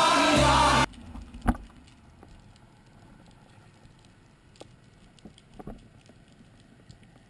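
Underwater sound through a camera housing. A loud, even rush of noise lasts about a second and stops abruptly, then gives way to a faint crackle with scattered sharp clicks.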